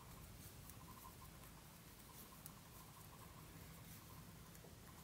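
Near silence with faint, scattered light ticks and scratches of circular knitting needles and yarn as stitches are purled.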